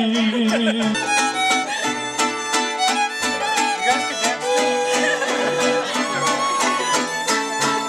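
Instrumental break in a slow Spanish-language bolero: violins carry the melody over steady guitar strumming, after the singer's last held note ends about a second in.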